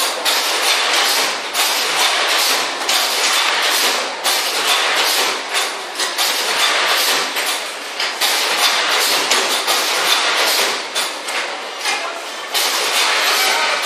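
Corrugated-carton folder gluer running, a continuous loud mechanical clatter with irregular knocks as cardboard sheets are fed through its belts and folding rails.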